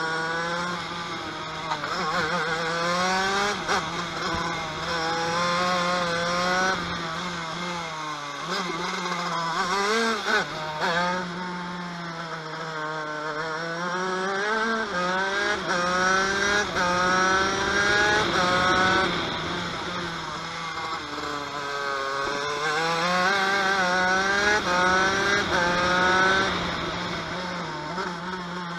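TM KV92 125cc two-stroke shifter kart engine at racing speed, revving up through the gears in repeated rising climbs, each cut short by a quick drop in pitch at the upshift. Twice, about a third of the way in and again past two-thirds, the revs fall away under braking before climbing again.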